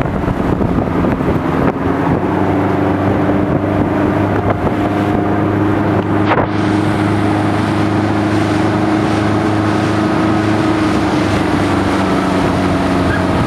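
Motorboat engine running steadily at towing speed, with water rushing in the wake and wind on the microphone.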